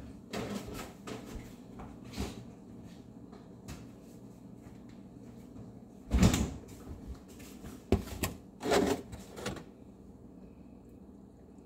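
Irregular knocks and clunks of kitchen items being handled on a counter, with a cluster of louder clunks about six to nine and a half seconds in.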